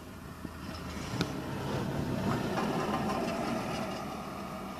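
A small bus drives past close by, its engine and tyres growing louder to a peak about halfway through and then fading. A single sharp knock comes about a second in.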